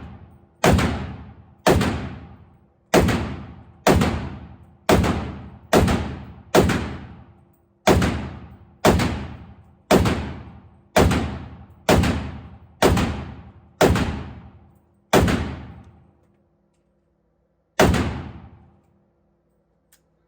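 Mini AK rifle firing 7.62 rounds semi-automatically: about sixteen single shots at roughly one a second, each ringing out for most of a second, with a longer pause before the last shot.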